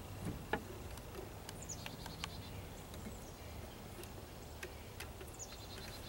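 Faint clicks and light rattling of a plastic turn-signal wiring connector being worked loose by hand, with a few faint high bird chirps in the background.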